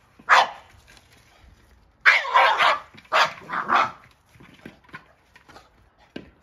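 Boston terrier barking in excited outbursts while playing with a Jolly Egg: one bark just after the start, then a run of several barks from about two to four seconds in.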